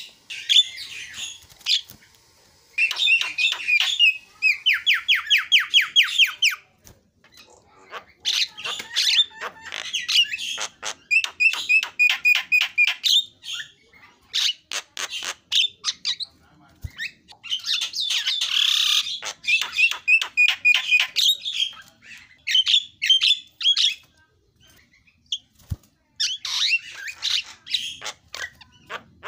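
Javan myna (jalak kebo) singing vigorously: a varied stream of squawks, whistles and clicks, with fast runs of repeated notes and short pauses between phrases, a song rich in mimicked phrases (isian).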